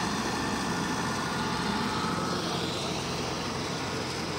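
Engines of tracked rice combine harvesters running steadily.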